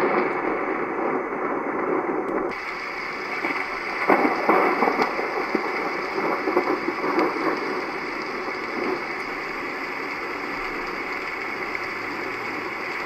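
Recorded rain sounds played through the small speaker of a Roffie white noise sound machine, as a steady hiss with uneven crackle. The sound changes abruptly about 2.5 seconds in, as the machine moves on to another rain track.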